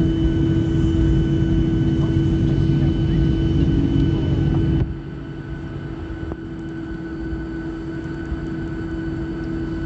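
Boeing 737 cabin noise as the jet rolls along the runway after landing: a steady engine and rolling rumble with a steady hum. About halfway through the level drops suddenly and stays lower.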